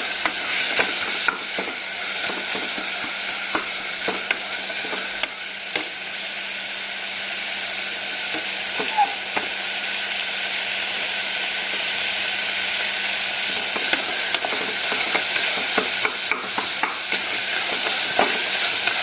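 Chopped onion, green chilli and tomato sizzling in hot oil in a pan while being stirred, with scattered clicks and scrapes of the spoon against the pan over a steady frying hiss.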